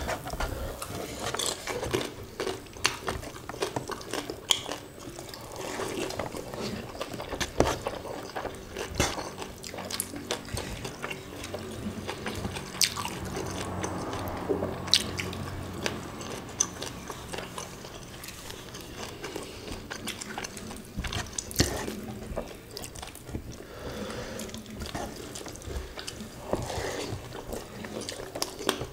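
Close-up eating sounds of two people eating rice with prawn sambal by hand: wet chewing and lip smacks, with fingers squishing and mixing the rice, heard as many scattered small wet clicks.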